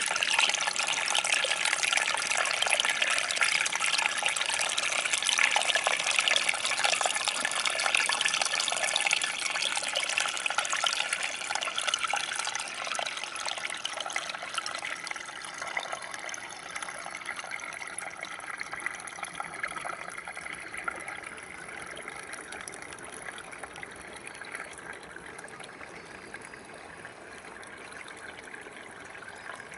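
Small creek running and trickling over rocks, a steady splashing rush that grows softer in the second half, settling to a quieter trickle.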